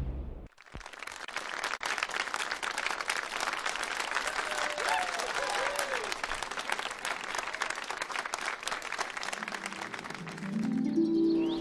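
A dense, even patter of many small crackling clicks. Near the end a low musical tone and bird chirps come in.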